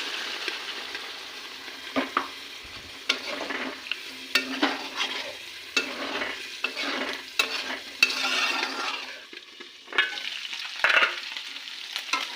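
Food sizzling in a hot pan while it is stirred, with irregular scrapes and knocks of the spoon or spatula against the pan.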